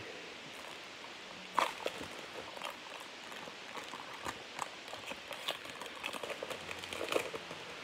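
Foil wrapper of a trading card pack crinkling and tearing as it is opened, an irregular run of crackles with a sharper snap about one and a half seconds in and another near the end.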